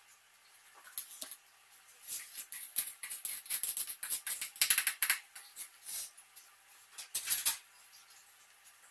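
A spoon scraping and clattering against a metal cooking pot in irregular bursts, busiest about halfway through and again briefly near the end.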